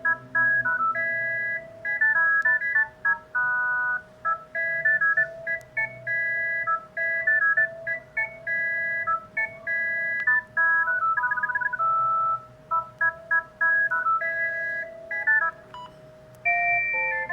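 Panasonic GD75 mobile phone ringtone: a quick electronic tune of short, clean beeping notes over a steady held tone. About a second before the end that tune stops and another ringtone begins.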